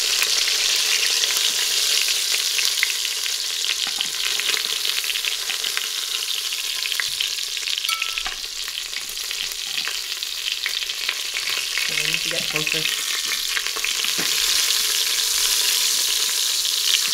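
Chicken thighs sizzling steadily in hot oil in an Instant Pot's stainless steel inner pot on high sauté, with light clicks from chopsticks against the pot as the browned pieces are lifted out.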